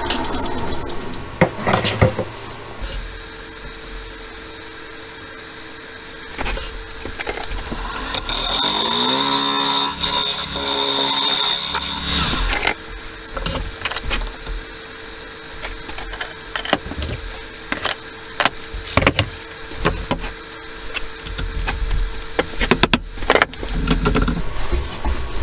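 A wood lathe runs with a steady motor hum. About eight seconds in, a turning tool cuts into the large spinning wooden blank for around four seconds, giving a loud hissing scrape. Scattered knocks and clicks follow as the tool and the wooden blank are handled.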